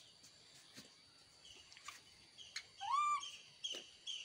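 A baby monkey gives one short squealing coo about three seconds in, rising then falling in pitch. Behind it a bird chirps steadily, about three short chirps a second, and there are a few light knocks.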